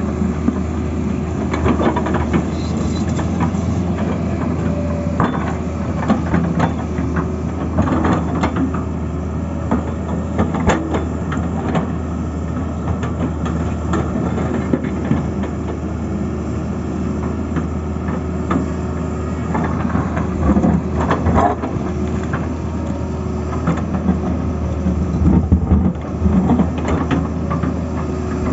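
Tata Hitachi excavator's diesel engine running steadily, with scattered metallic clanks and knocks from the machine working.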